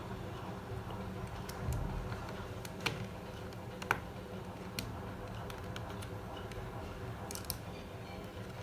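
Small screwdriver undoing the hard-drive bracket screws inside a MacBook Pro: scattered light metallic clicks and taps over a steady low hum.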